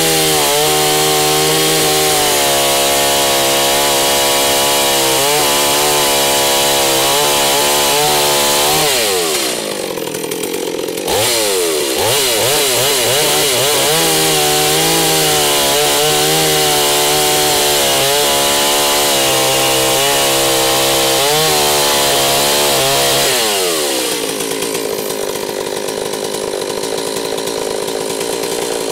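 G388 two-stroke chainsaw with a long bar cutting through a log at full throttle, its engine note wavering as the chain bites into the wood. About nine seconds in the revs drop away briefly, then climb back to carry on the cut. Near the end the revs fall off and the saw settles to a quieter, steadier run as the cut is finished. The engine is new and still being broken in.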